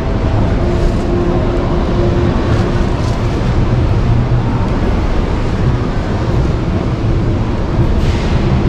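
Steady, loud rumbling ambience of a large exhibition hall: a low, even wash of noise with a faint steady hum through it.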